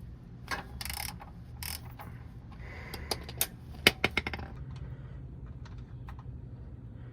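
Hand tools working an oil drain plug loose: scattered metallic clicks and clinks, with a quick run of sharp clicks about four seconds in.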